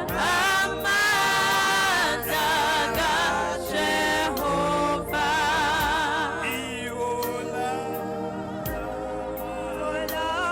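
Gospel singing with strong vibrato over sustained, held chords. The voices are fuller in the first half and thin out after about six seconds.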